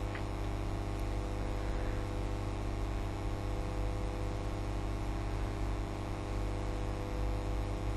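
Steady electrical mains hum: a low buzz with many evenly spaced overtones and a little hiss, unchanging throughout.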